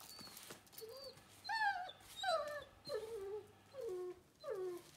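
Dog whining: five drawn-out cries, each falling in pitch, coming about one every three-quarters of a second from about a second and a half in.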